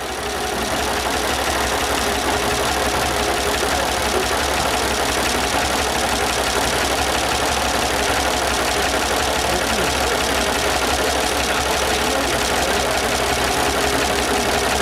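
Early vintage car's inline engine, its overhead valve gear open to view, idling steadily.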